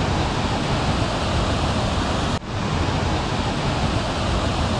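Loud, steady rushing noise with no distinct events, heaviest in the low end. It drops out for an instant about two and a half seconds in.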